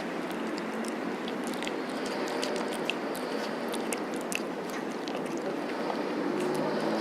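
Cat chewing food, with small crunching clicks, over a steady hiss of background noise. A low hum comes in near the end.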